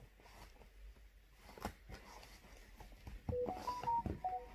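Short electronic jingle from a Samsung Galaxy Tab A tablet: a run of clear tones stepping up in pitch and back down, lasting about a second, starting about three seconds in. A few light handling clicks come before it.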